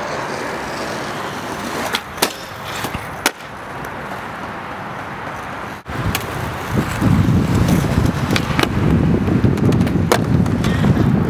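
Skateboard wheels rolling on an asphalt court, a low rumble that starts about halfway through, with a few sharp clacks as the board pops and hits a low box ledge near the end.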